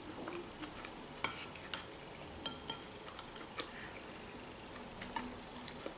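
Quiet eating: soft chewing with scattered light clicks of a metal fork against a dish.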